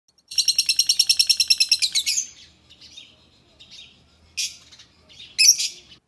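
Fischer's lovebird chirping: a rapid run of shrill, high chirps, about ten a second, lasting nearly two seconds. Softer twittering follows, then two loud sharp calls near the end.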